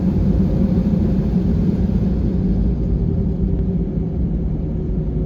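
Airliner's engines running on the ground before takeoff: a steady low rumble with a steady hum, not building up to a takeoff roll.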